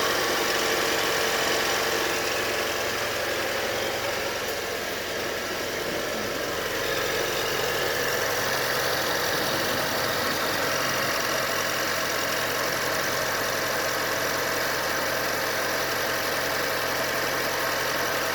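Mitsubishi Pajero Mini turbo engine idling steadily, with the squealing 'kyuru-kyuru' noise that the owner hears when it is started cold and that quietens after a while.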